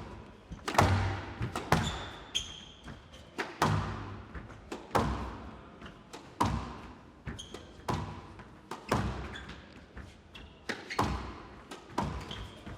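Squash rally: the ball is struck by the rackets and smacks off the court walls about once a second, each hit echoing briefly in the glass court, with a few short squeaks of shoes on the floor.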